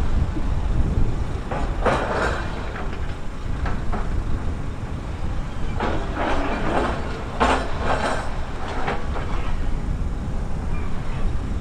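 Bulldozer's diesel engine running under load with clanking steel tracks. Louder bouts of clattering and scraping come about two seconds in and again around six to eight seconds in.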